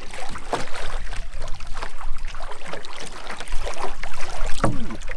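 Water splashing and lapping against a canoe as a wooden paddle is drawn through it in side-slip draw strokes, with a low wind rumble on the microphone.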